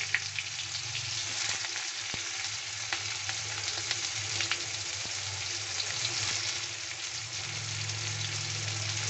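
Sliced onions sizzling in hot oil in a kadai, a steady frying hiss with a few light clicks, over a faint low hum.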